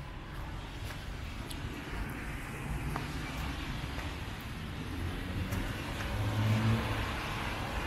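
A car driving past on a wet road: tyres hiss on the water and the engine hum swells about six seconds in. A steady wash of light rain and drips sits underneath.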